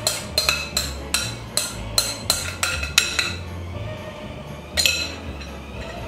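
A metal spoon knocking and scraping against a glass mixing bowl as the last of the filling is scraped out: a quick run of sharp, ringing clinks, about three or four a second, that stops after about three seconds, then two more clinks near the end.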